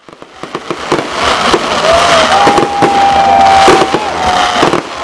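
Fireworks display: a few separate bangs at first, quickly thickening into dense, continuous crackling and popping from many shells.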